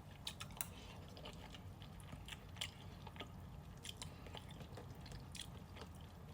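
A person chewing food: soft, irregular mouth clicks and smacks, several a second.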